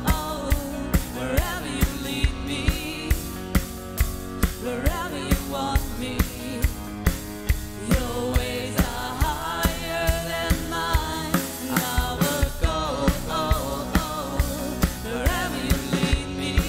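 Live worship band playing a contemporary worship song: voices singing the melody over a drum kit and keyboard, with the drums keeping a steady beat of about two hits a second.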